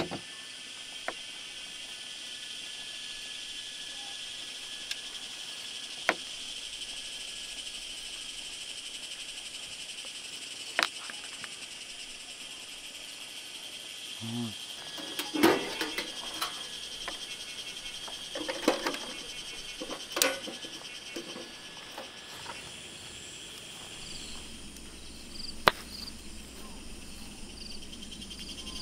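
Steady high insect chorus, with a second insect adding a fast, pulsing trill near the end. Scattered sharp clicks and knocks sound over it, bunched around the middle.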